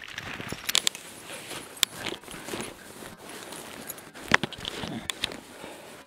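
Footsteps rustling through long rough grass as a walker and two dogs on leads move along, with a few sharp clicks and knocks scattered through, the loudest about four seconds in.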